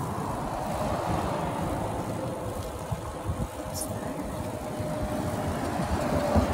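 Wind buffeting the microphone and road noise while riding a bicycle: a steady, flickering low rumble.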